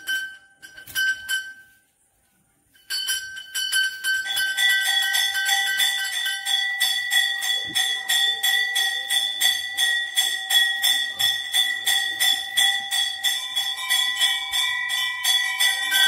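Temple bells ringing rapidly with fast, even strokes. The ringing drops out briefly about two seconds in, then from about four seconds in a second, differently pitched bell joins and the two ring together.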